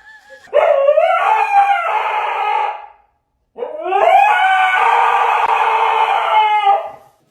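A dog howling twice, two long drawn-out howls that rise at the start and then hold, with a brief pause between them.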